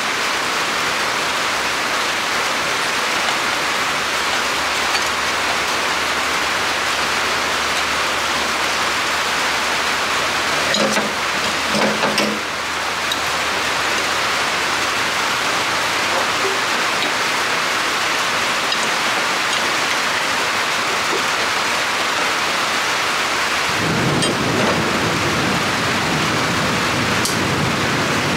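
Steady heavy rain hissing on a roof, with a deeper rumble joining about 24 seconds in.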